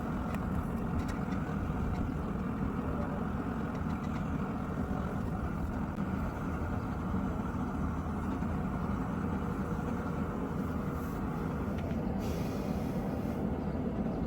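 A forge running with a steady rushing noise, with no hammer blows.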